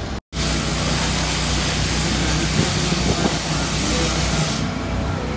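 Electric arc welding: the welding arc gives a steady hiss that starts a moment in and stops near the end.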